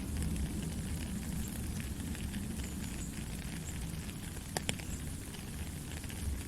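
Soft rain falling steadily, a dense patter of drops with two sharper drop taps a little past halfway.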